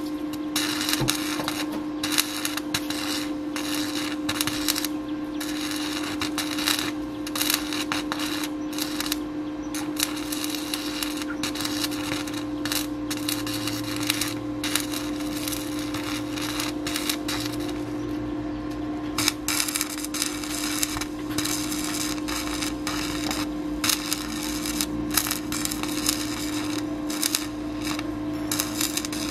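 Stick-welding arc on a rotary tiller's blade rotor, crackling and sputtering with short breaks, over a steady hum from the welding machine.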